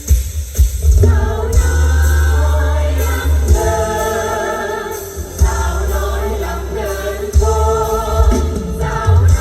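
Music with singing over a heavy bass.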